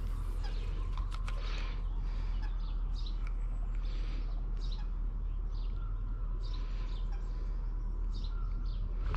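Birds chirping in short, repeated high calls, over a steady low rumble.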